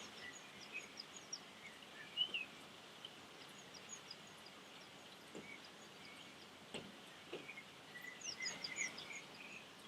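Hooded crow's soft song: faint, scattered short chirps and whistles with a few clicks, the chirps growing busier near the end.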